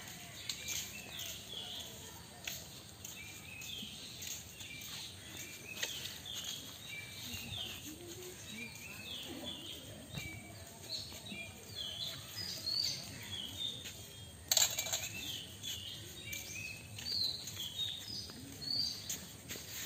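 Small birds chirping and calling: many short, quick notes, repeated throughout, some overlapping. A single sharp knock stands out about two-thirds of the way through.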